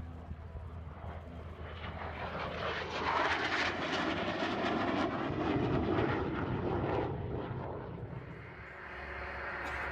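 Airbus A350-1000's twin Rolls-Royce Trent XWB turbofans as the airliner flies past low and slow. The jet noise swells to a peak over a few seconds, then fades and begins to rise again near the end.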